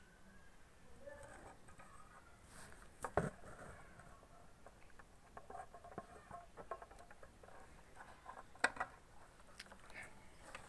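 Faint handling noise: scattered small clicks and rustles, with two sharper clicks about three seconds in and again near the end.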